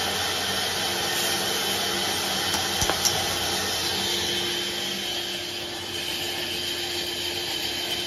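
Large vertical band saw of a log sawmill running with a steady whine and hum. A few sharp knocks come about three seconds in.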